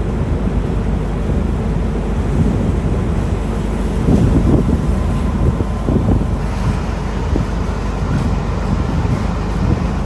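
Wind buffeting the microphone in gusts over a steady low rumble.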